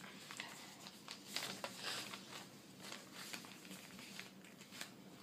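A sheet of paper rustling and crinkling as hands fold and crease it, in faint, irregular crackles.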